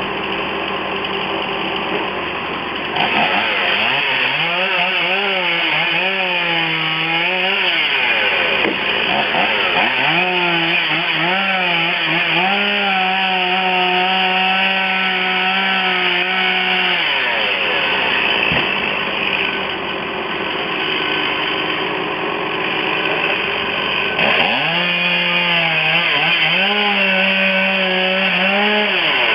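Chainsaw revving up and cutting in three runs of several seconds each, its pitch wavering and sagging under load, then dropping back toward idle between cuts. A steady mechanical din sits underneath.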